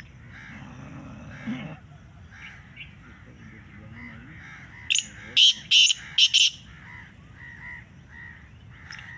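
Black francolin calling: a quick phrase of five loud, short notes about five seconds in, over faint background chatter and birdsong.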